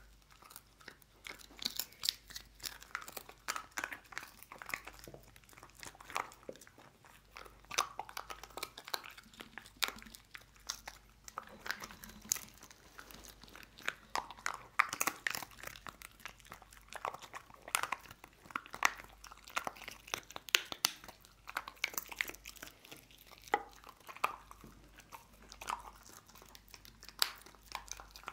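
A dog chewing and crunching dried kangaroo ribs, with many irregular sharp crunches of dried bone.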